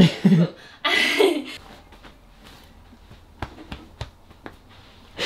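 A woman's voice briefly at the start, then a quiet room with a few faint, light clicks in the second half.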